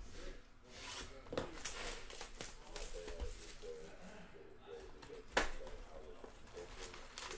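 Cardboard trading-card hobby box being handled and its lid opened, with a few light clicks and one sharp knock about five seconds in. A faint voice murmurs underneath.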